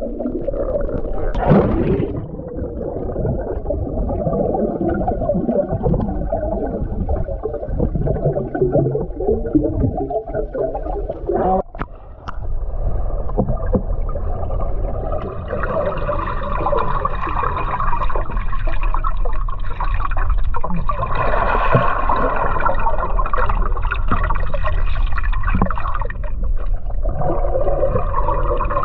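Muffled underwater sound of water churning and bubbling around a swimmer, heard through a submerged camera; the sound breaks off briefly about twelve seconds in and comes back brighter and busier.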